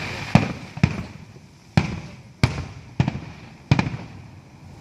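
Fireworks exploding: about seven sharp bangs at uneven intervals, each dying away before the next.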